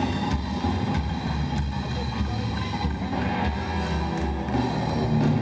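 Rockabilly trio playing live, with no singing: slapped upright bass, a small standing drum kit and a hollow-body electric guitar in a steady, driving rhythm.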